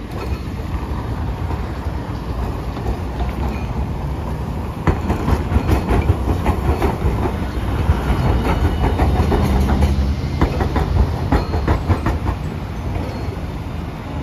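Hiroshima Electric Railway Green Mover LEX low-floor tram passing close, its wheels clacking over rail joints and crossing gaps in a quick run of clicks from about five seconds in until about twelve seconds, over a steady low rumble of the tram and road traffic.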